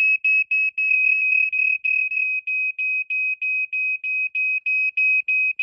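Ei3100-series radio-linked smoke alarm sounding on test: a loud, high-pitched beep repeating rapidly, about three times a second.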